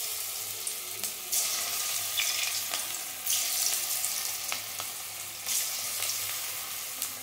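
Batter-coated cauliflower pieces deep-frying in hot oil in an aluminium kadai: a steady bubbling sizzle. The sizzle swells about three times as further pieces are dropped into the oil.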